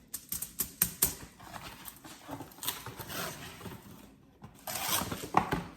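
Aluminium foil crinkling and crackling as it is pressed and rolled around a log of cake, with irregular sharp crackles and rustles.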